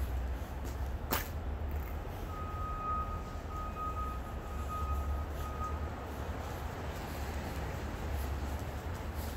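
Steady low city street rumble, with a vehicle's back-up alarm beeping at one steady pitch for about three and a half seconds, starting about two seconds in. A single sharp click about a second in.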